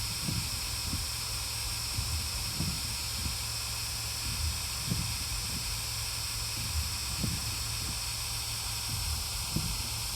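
Steady hiss with soft, irregular low thumps scattered through it.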